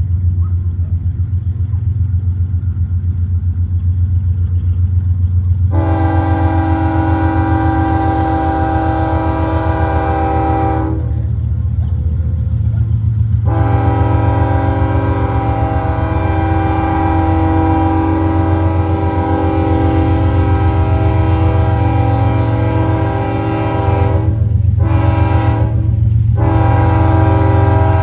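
GE ES44AC diesel locomotive running with a steady low throb as the loaded freight train pulls away. About six seconds in, its multi-tone air horn sounds the grade-crossing pattern: two long blasts, a short one, then a long one still going at the end.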